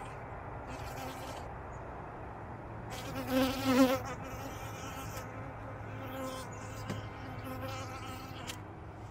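Honeybees buzzing at the hive entrance; one flies close past, its buzz swelling loud and wavering about three seconds in, with fainter passes later.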